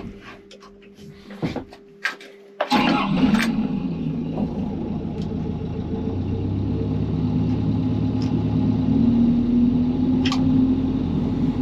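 A Hitachi ZX135US excavator's diesel engine cranks and catches about three seconds in, after a few clicks and a steady low tone from the cab controls. It then runs with a steady rumble that slowly grows louder.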